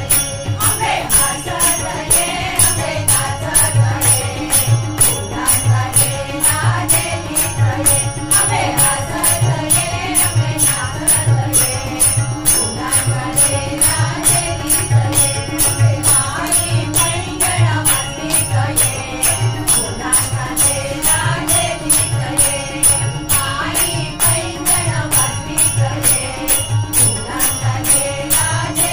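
Marathi Ganpati bhajan sung by a group, accompanied by harmonium and tabla, with hand clapping and a jingling beat keeping a steady rhythm.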